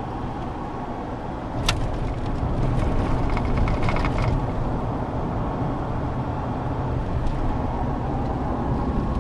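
Steady low road and engine rumble inside a moving car's cabin, growing a little louder about two seconds in. A single sharp click comes just before that, followed by a run of light ticks.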